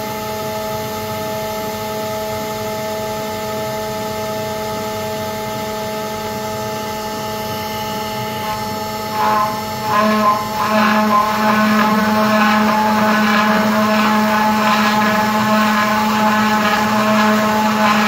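Electric spindle of a home-built CNC router running with a steady whine. About nine seconds in it grows louder and rougher as the bit cuts into the pine board.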